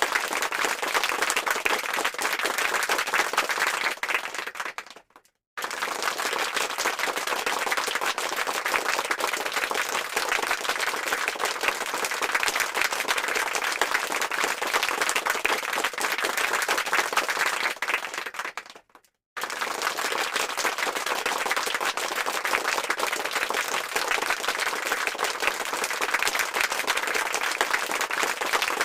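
Applause sound effect: dense clapping of many hands. It fades out twice, about 5 s and 19 s in, drops to a brief silence, then starts again abruptly.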